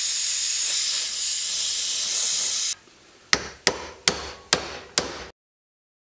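Handheld gas torch hissing steadily as it heats a seized door-hinge pin, cutting off after about three seconds. Then five sharp hammer blows on a punch, metal ringing on metal, about half a second apart, driving at the stuck pin.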